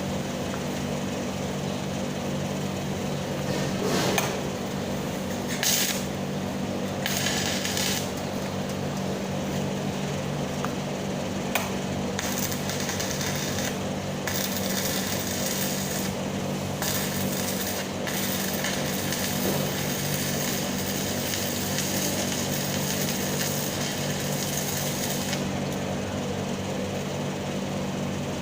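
Stick welding arc crackling and sizzling steadily, with a steady low hum beneath it.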